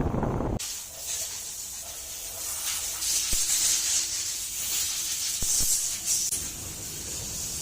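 Steady hiss of compressed air, such as a spray gun or air blow gun in auto body work, starting suddenly about half a second in, with a couple of faint knocks partway through.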